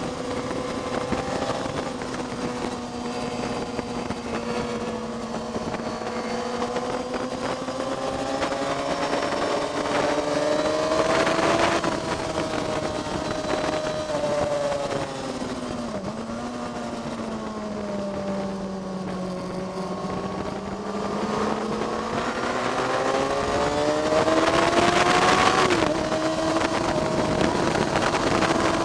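Motorcycle engine at high revs, heard from onboard while lapping a race track. Its pitch climbs under acceleration, drops under braking with a downshift about halfway through, then climbs again with a gear change near the end.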